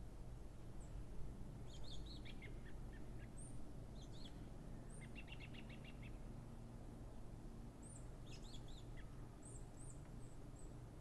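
Small songbirds chirping in short scattered calls, with a quick trill of about eight even notes about five seconds in and thin, very high chirps near the end, over a faint steady low outdoor background.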